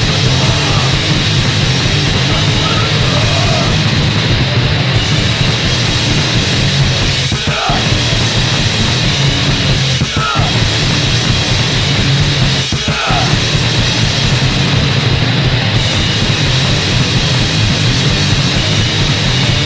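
Punk band recording playing a loud, dense full-band song, with three brief breaks in the middle.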